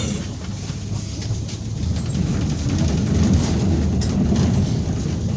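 Steady low rumble of a city bus in motion, heard from inside the cabin: engine and road noise, growing somewhat louder about halfway through.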